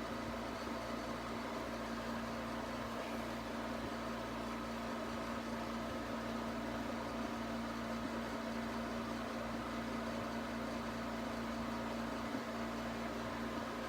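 Steady background hum with an even hiss, unchanging throughout: room tone from a running machine or appliance.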